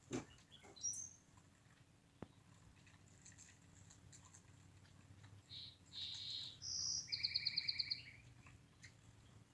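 Brown-headed cowbirds calling: a thin, high rising whistle about a second in, then a few squeaky notes and a fast chattering rattle near the end. A single knock at the very start.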